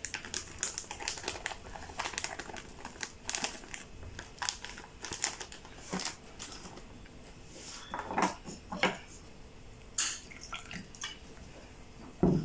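Paper bag of chilli bite mix crinkling and rustling as it is handled and emptied into a glass bowl, with scattered light clicks and knocks of dishes on the countertop.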